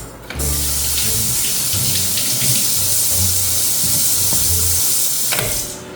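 Water tap running in a steady stream into a sink, turned on just after the start and off about half a second before the end.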